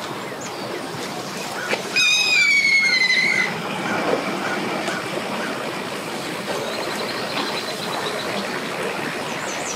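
Boat engine running at the trailer, its propeller churning the water, heard as a steady wash of noise. About two seconds in, a loud high squeal sounds for about a second and a half, falling slightly in pitch.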